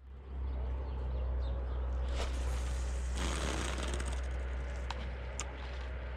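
Outdoor ambience: a steady low rumble, with a brief rustle about three seconds in and a few sharp clicks.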